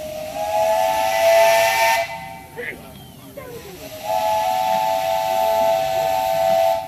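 Live steam locomotive's chime whistle blowing two long blasts, each a chord of several steady tones; the first stops about two seconds in and the second starts about four seconds in and runs nearly to the end.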